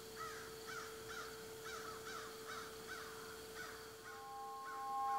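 A bird calling in a quick series of about a dozen short calls, each rising then falling, over a faint steady hum. About four seconds in, as the calls weaken, two clear steady tones fade in.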